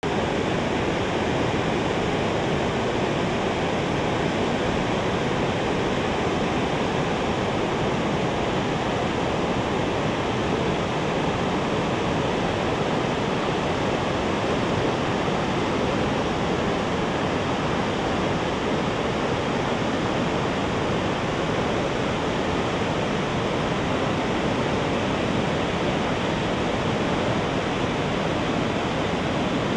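Steady, even rushing of river water, unchanging throughout.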